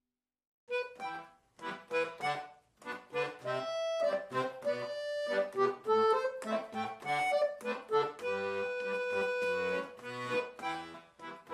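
Accordion playing a lively tune, starting just under a second in after a brief silence, with short chords at first and longer held notes later.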